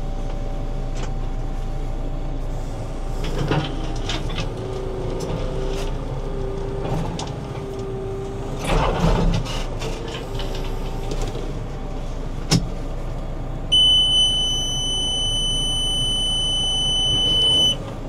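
JCB backhoe loader's engine running from inside the cab while the electro-hydraulic controls lift the front shovel and reposition the machine, with a pitched hum midway and a single sharp click about two-thirds through. Near the end the cab's warning beeper sounds a steady high tone for about four seconds.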